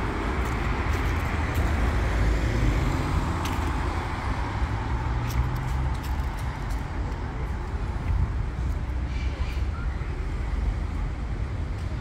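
Road traffic on a wide city street: cars driving past in a steady wash of engine and tyre noise with a strong low rumble.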